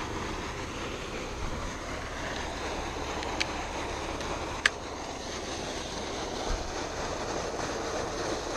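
Steady outdoor noise on the microphone, with two sharp clicks a little over a second apart near the middle as a spinning fishing reel is handled right by the microphone.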